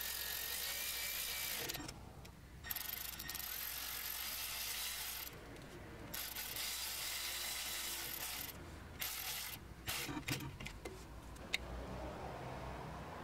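Hand socket ratchet clicking as it tightens the 10mm bolts of a new drum-brake wheel cylinder, in runs of a couple of seconds with short breaks between them.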